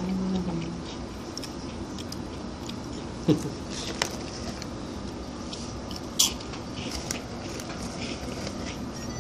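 Close, crisp crackling and crunching of bacon-flavoured potato chip strips being eaten and handled, with three sharper cracks.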